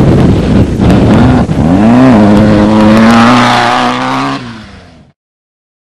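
Off-road race vehicle's engine accelerating hard, its pitch rising quickly and then held high, over a rough rumble of wind and dirt. It fades and cuts off suddenly about five seconds in.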